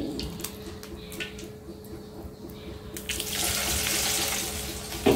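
Used frying oil being poured out of a tilted wok. A steady pouring rush starts about three seconds in, over a faint steady hum.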